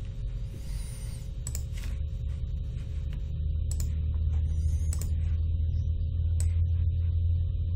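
Computer mouse clicking a few times, sharp single clicks, over a steady low hum that grows louder about halfway through.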